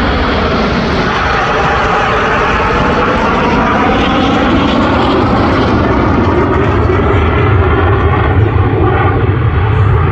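Loud, steady jet engine noise from display aircraft flying past, its tone slowly sweeping up and down as they pass.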